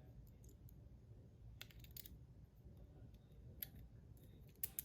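A few faint metallic clicks from handling a stainless-steel Rapt fidget slider, against near silence, with a couple of sharper clicks near the end.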